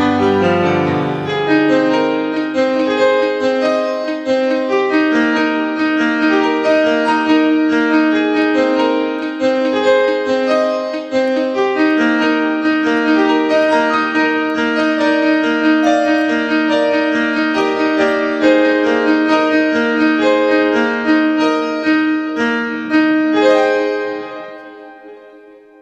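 Background piano music, a steady run of notes that fades out near the end.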